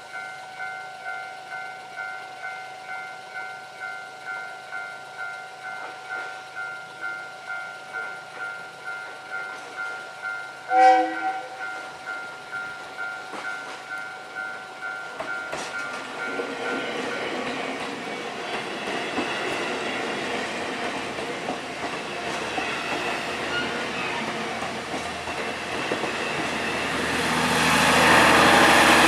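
Japanese level-crossing warning bell ringing in quick, even strokes, about one and a half a second. A train gives one short horn blast about eleven seconds in. From about sixteen seconds in, the noise of the approaching train builds and drowns out the bell, loudest near the end as the train passes the crossing.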